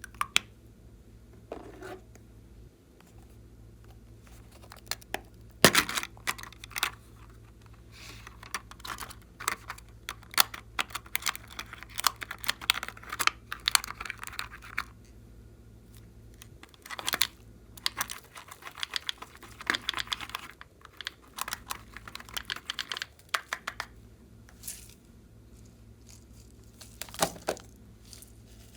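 Slime being squeezed and kneaded by hand: bursts of sharp, sticky clicking and crackling.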